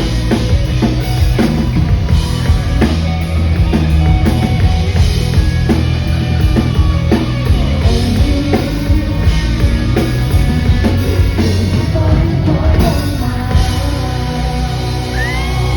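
Live rock band playing, with a drum kit beating steadily under strong bass and guitars, heard loud from the audience through a phone-type fan recording.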